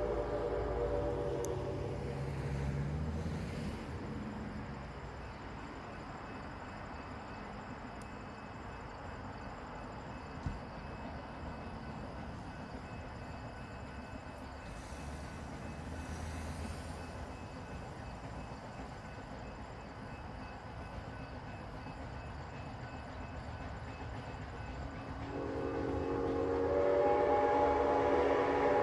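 Steam locomotive whistle, from Grand Trunk 0-6-0 No. 7470, sounding as a chord. It fades out about a second in, and a long blast starts suddenly near the end, growing louder. Between the two blasts there is a steady low rumble of road traffic.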